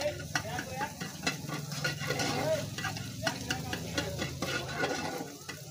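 A flat metal spatula scrapes and taps against a blackened kadai while scrambled egg bhurji is stirred and fried, over a steady sizzle.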